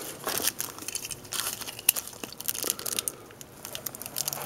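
Small package being torn open and crinkled by hand, with irregular crackling and rustling in fits and starts.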